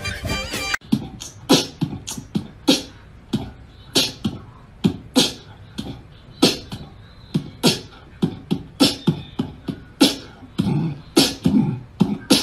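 Kitten hissing and spitting in short, sharp bursts, about one or two a second and crowding closer together near the end, with its back arched in a defensive stance. In the first second, music plays and then cuts off abruptly.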